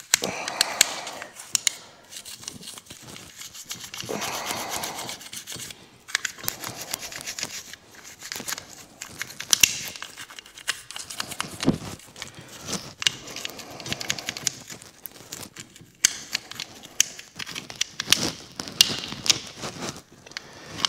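Toothbrush scrubbing a dirty brake caliper on a Can-Am Maverick X3, cleaning around where the caliper slides back in: bristles scraping on metal in short, irregular strokes with many small clicks.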